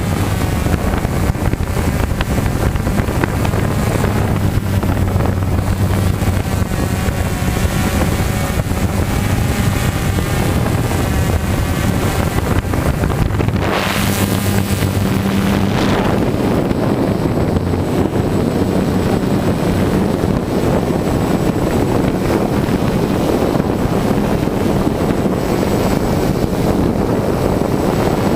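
Walkera QR 350PRO quadcopter's motors and propellers running with a steady low hum, under heavy wind noise on the microphone, with a couple of whooshing surges about halfway through.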